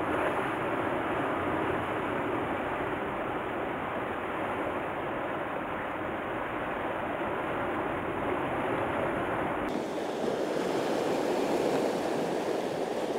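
Sea surf washing and breaking against a rocky shore, a steady rush of waves. About ten seconds in, the rush turns fuller and brighter.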